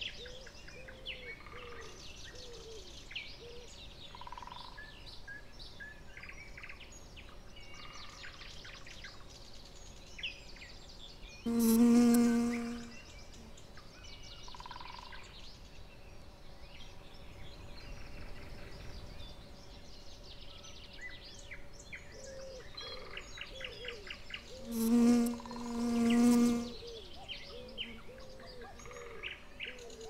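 A honeybee buzzing loudly close by, once about twelve seconds in and twice more around twenty-five seconds in, each buzz lasting a second or so. Many small birds chirp in the background throughout.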